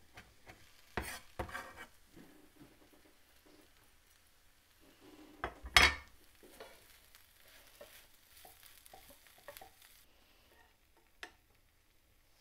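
Wooden spoon stirring and scraping a potato hash in a hot frying pan, with a faint sizzle. A couple of knocks about a second in and one sharp, louder knock about halfway through.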